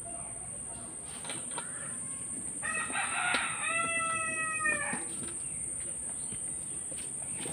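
A rooster crowing once about three seconds in: one call of about two seconds with a rough start, then a long held note that drops at the end.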